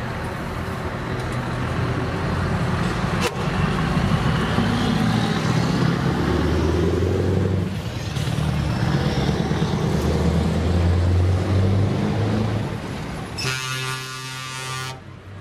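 Heavy diesel trucks driving slowly past, their engines running with a deep rumble that rises and falls as they pull through the corner. Near the end a truck horn sounds for about a second and a half.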